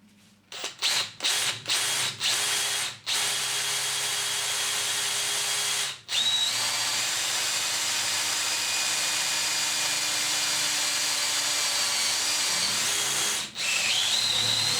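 Power drill boring through 5 mm thick mild steel with a 5 mm HSS twist bit lubricated with cutting paste. It starts with a few short trigger bursts, then drills steadily with two brief pauses, and a thin high whine comes in over the later part. The bit cuts through quickly and without trouble.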